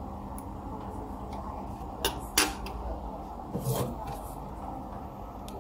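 A small screwdriver set down on a wooden table: two sharp clicks in quick succession about two seconds in, then a short, softer handling noise about a second later.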